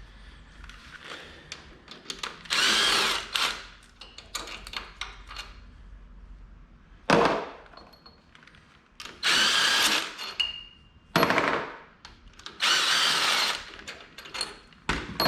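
A power tool driving bolts out of a lawn tractor engine in three short bursts of about a second each, with sharp metal knocks between them.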